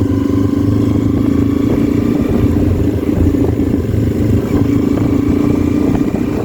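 Motorcycle engine running at a steady cruise, with road noise.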